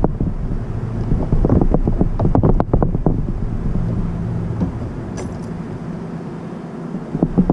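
Wind buffeting the microphone as a low rumble, with a quick run of rustling knocks between about one and a half and three seconds in, then easing.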